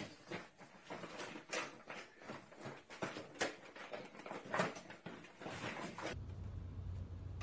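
Plastic food bag crinkling and rustling in irregular bursts as a small pet moves about with its head stuck inside it. It stops abruptly about six seconds in, giving way to a steady low hum.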